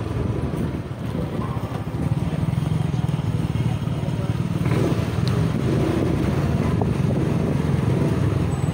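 Motorcycle engine running steadily, heard from on board while riding along a street.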